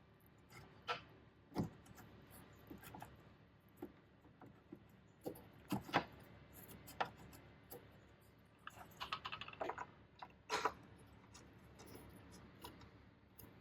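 Scattered faint clicks and light taps of small fasteners and plastic being handled as the two screws are set back into a truck tail light assembly, with a quick run of clicks about nine seconds in.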